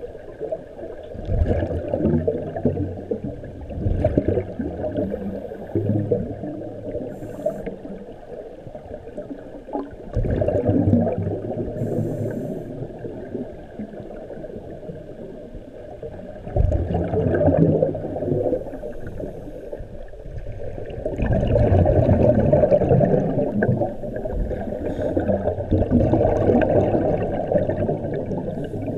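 Muffled underwater gurgling heard through a GoPro's waterproof housing, swelling in surges every few seconds like a scuba diver's exhaled regulator bubbles.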